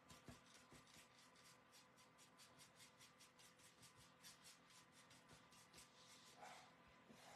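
Faint, quick, rhythmic scratchy strokes of a small flat paintbrush working chalk paint, about five strokes a second, stopping near the end.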